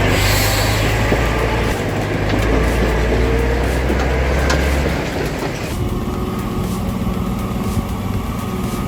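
Heavy diesel truck engine running steadily under load, with a deep low tone. The sound changes about five to six seconds in, with the deepest tone dropping away and the upper hiss thinning.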